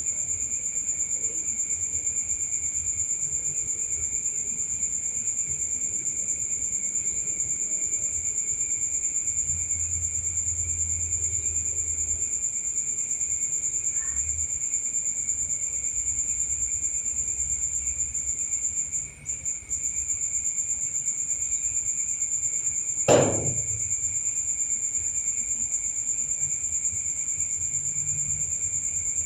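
Crickets chirping in a steady high, rapidly pulsing trill, with a second lower insect band beneath it. About three-quarters of the way through, a single sharp knock cuts across it.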